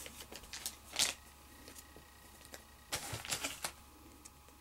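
Pokémon trading cards being handled and slid against one another, in two short bouts of flicking, about a second in and again around three seconds in.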